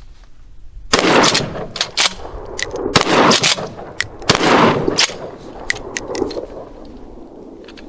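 Three 12-gauge blasts from a Remington 870 pump shotgun firing birdshot mini shells, about one and a half to two seconds apart, each with a trailing echo. Short sharp clacks between the shots fit the pump action being worked.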